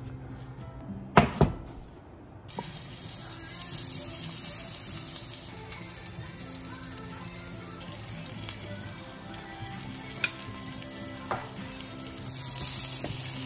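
Chicken breasts sizzling in oil in a nonstick frying pan. The sizzle starts suddenly about two and a half seconds in and grows louder near the end, with background music under it. Two sharp knocks come about a second in.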